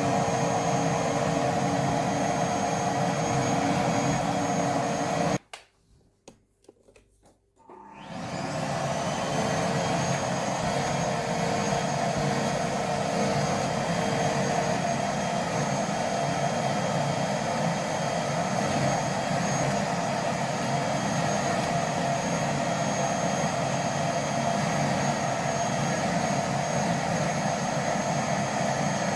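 Vacuum cleaner running steadily with a high whine, switched off about five seconds in; after a few faint clicks it is switched back on and its motor spins up to a steady run again.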